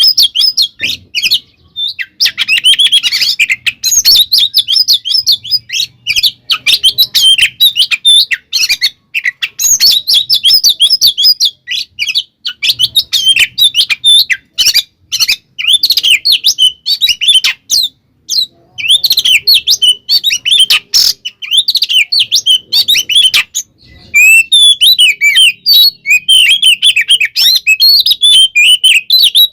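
Oriental magpie-robin (kacer) singing a long, loud, rapid song of varied chirps, whistles and trills in close phrases with short breaks. This is the agitated, fighting-style song (kacer 'tarung konslet') played to rouse other magpie-robins.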